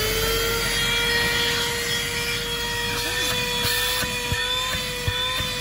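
Handheld GoMechanic Proton 6000 car vacuum cleaner's motor running at full speed with a steady whine. There are a couple of light knocks near the end.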